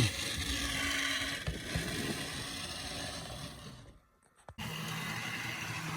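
HO scale model diesel locomotive running on the track: a steady whir of its motor and wheels, fading before a half-second dropout to silence about four seconds in, then steady again.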